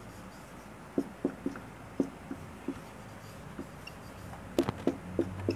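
Marker writing Arabic script on a whiteboard: a string of short, irregular taps and scratches as the tip strokes and lifts, with a few louder clicks near the end.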